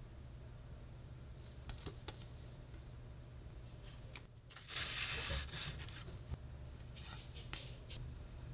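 Faint handling of paper and photocards: a few soft taps and clicks, and about halfway through a brief paper rustle as a small paper sleeve is squeezed open and a photocard slid out. A steady low hum runs underneath.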